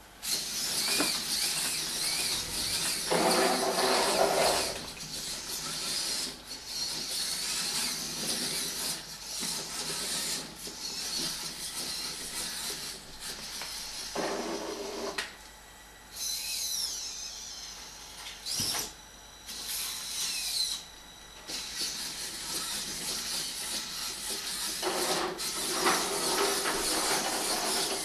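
VEX robot's electric drive and arm motors whirring as it drives across the table and moves its arm, with a rising and falling whine and a few louder spells of a second or two.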